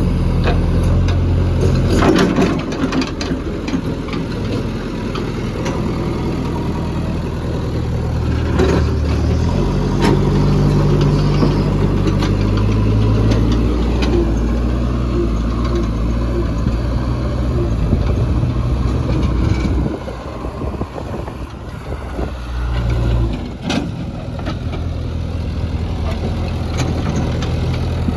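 JCB 3DX backhoe loader's diesel engine running under changing load, its pitch stepping up and down several times and dropping back for a few seconds about two-thirds through, with scattered knocks and clanks.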